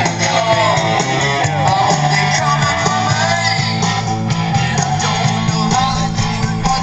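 Rock music with guitar playing.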